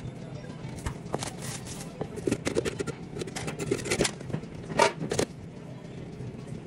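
Irregular clicks, scrapes and clatter of hands and utensils working at a sushi counter, over a steady low hum. The loudest clatter comes just before five seconds in.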